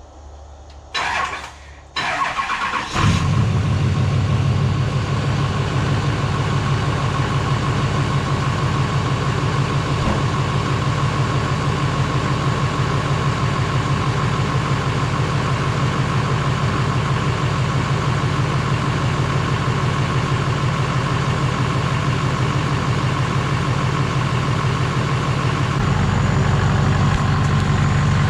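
A Duramax LMM 6.6-litre V8 turbodiesel cranks with a slow crank from batteries drained by the lights, catches about three seconds in and settles into a steady idle. This is its first start after the engine swap.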